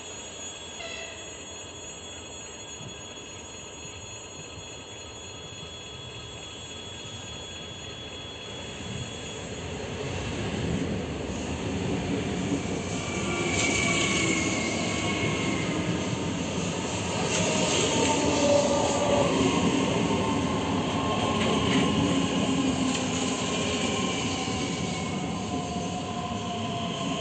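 EG2Tv Ivolga electric commuter train pulling into the platform and braking. Its running noise builds up about a third of the way in, with electric whines falling in pitch and wheel squeal as it slows to a stop.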